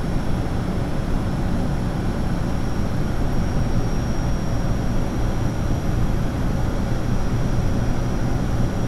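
Steady cockpit noise of an ATR 72 turboprop on final approach: the deep drone of its two propeller engines with rushing air, and a thin steady high whine over it.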